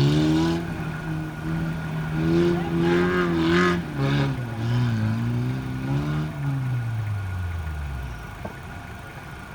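Off-road racing vehicle's engine held at high revs under load, with a brief hiss about three to four seconds in, then easing off, its pitch falling and fading away.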